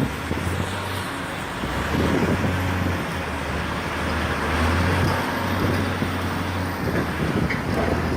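A large engine or machine running steadily, with a low hum under a rumbling mechanical noise.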